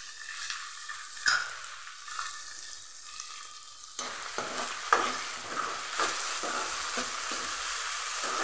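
Chopped tomato and onion sizzling in hot oil in a metal kadhai, frying for a tempering, while a steel ladle stirs them. The ladle scrapes and taps against the pan, more often in the second half.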